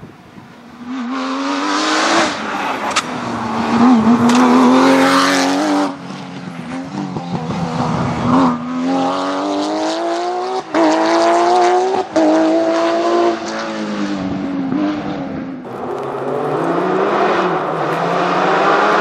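Porsche rally car engines revving hard, the pitch climbing and dropping through gear changes, with several abrupt breaks where passes are cut together.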